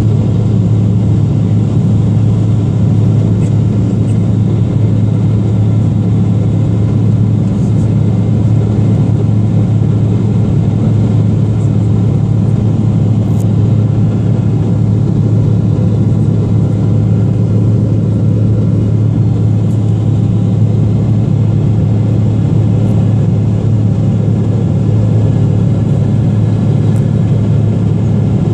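Cabin noise of a Boeing 777-300ER heard from a seat by the wing: its GE90-115B turbofan engines and the airflow make a loud, steady rumble with a hiss above it.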